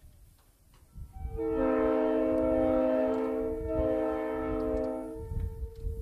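Multi-chime locomotive-style air horn mounted on a pickup, sounding a several-note chord. The notes come in one after another about a second in and hold for a couple of seconds. After a brief break the horn sounds again, then cuts out near the end, leaving one low note trailing off.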